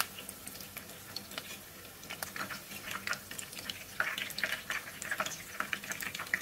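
Egg-coated chicken drumsticks frying in hot oil: a steady sizzle with scattered crackles and pops that grow busier from about two seconds in.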